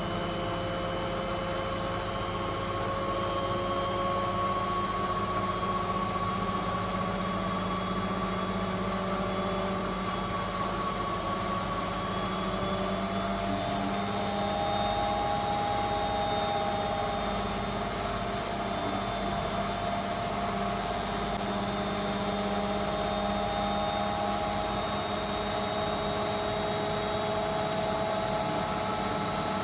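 Indesit washing machine's drum in its final high-speed spin, at about 1000 rpm: a steady motor whine and drum rush with several held tones that drift slightly in pitch.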